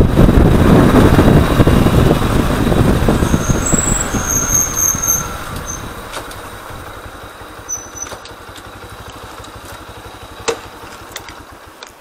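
Motorcycle riding with engine and wind noise loud for the first five seconds or so, then fading as the bike slows to a stop, leaving a quiet low rumble. A single sharp click about ten and a half seconds in.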